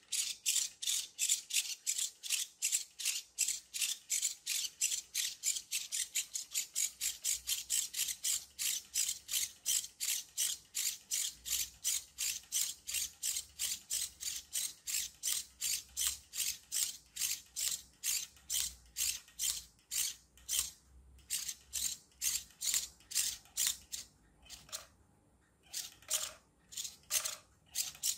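9-gram micro servo steering a small RC toy car, buzzing in short bursts as it swings the front wheels back and forth about three times a second; near the end the bursts come sparser and uneven.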